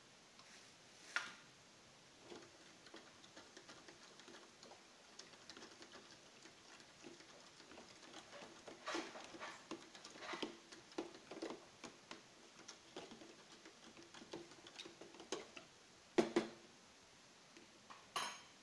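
Metal spoon stirring thick batter in a plastic tub, with irregular light taps and clicks of the spoon against the container and a few sharper knocks near the end.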